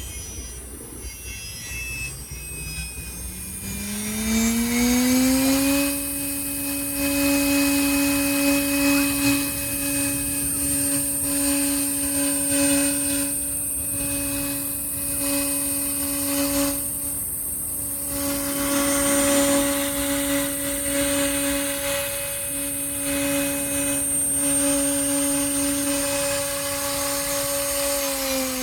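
CNC router spindle spinning up to a steady high whine over the first five seconds or so, then running at constant speed while it cuts a wooden cabinet door, with cutting noise that rises and falls. Near the end the whine begins to drop as the spindle winds down.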